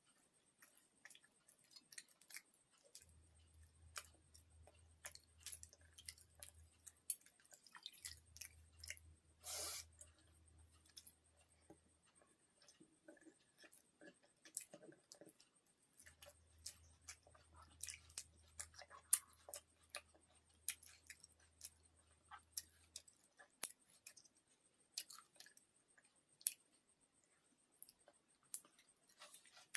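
Close-up eating sounds: chewing and small wet mouth clicks from a meal of pakhala (fermented water rice) with fried drumstick-flower fritters and cucumber, with one longer, louder mouthful sound about a third of the way in.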